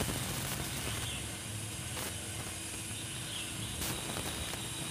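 Outdoor garden ambience: a steady hiss of background noise with faint bird chirps twice and a few soft clicks.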